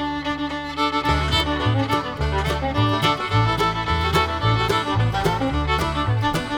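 Upbeat background music led by a fiddle over a plucked string backing and a walking bass line, in a bluegrass-country style.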